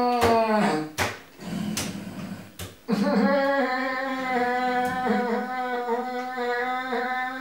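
A man's voice wailing a long, falling "nooo", then four sharp clicks, then a long line delivered on an almost steady held pitch, like chanting.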